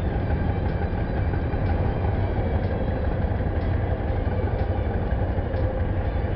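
Idling engines of a stationary motorcycle and the auto-rickshaws around it, held at a traffic signal: a steady low rumble with faint ticks about once a second.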